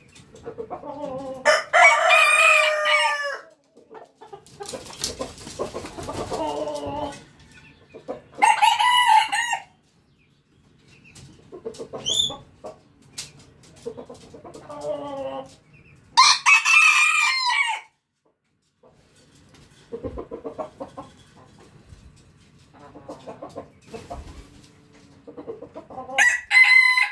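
Roosters crowing one after another: about four loud cock-a-doodle-doo crows several seconds apart, each lasting a second or two, with fainter crows between them.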